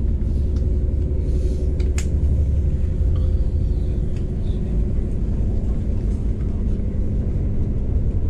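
Steady low rumble of a passenger train running along the rails, heard from inside the carriage, with a sharp click about two seconds in.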